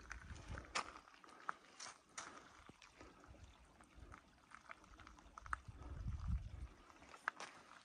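Footsteps on the loose rock and gravel of a glacier moraine, with irregular clicks of stones knocking together underfoot. A low rumble of wind on the microphone comes and goes, strongest about five to six and a half seconds in.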